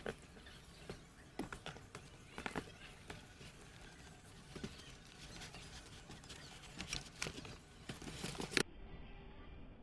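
Packaging being handled: foam blocks and cardboard box flaps rubbing and knocking as they are pushed and lifted out, a scatter of irregular light knocks and rustles that cuts off suddenly about eight and a half seconds in.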